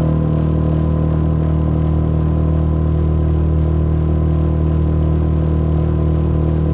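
Small boat motor running steadily, a loud even drone that holds one pitch throughout.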